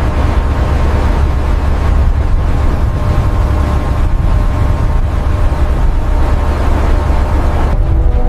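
Deep, steady rumble of heavy hydraulic lifting machinery under load, with a rushing hiss above it that thins out near the end.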